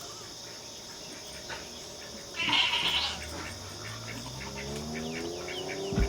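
Goats bleating: a short harsh call about two and a half seconds in, then a longer call that rises slowly in pitch toward the end.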